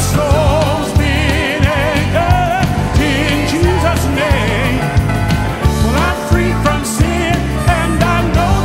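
Live gospel song: a man singing lead with a wide, wavering vibrato over a full band with a steady beat.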